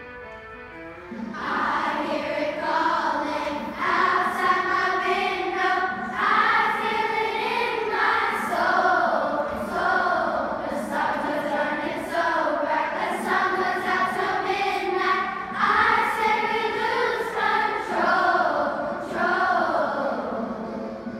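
Children's choir singing, the voices coming in about a second and a half in after a brief hush.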